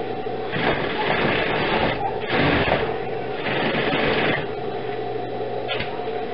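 Industrial sewing machine stitching a seam in three short runs, each a second or so long, with brief pauses between, over a steady electrical hum.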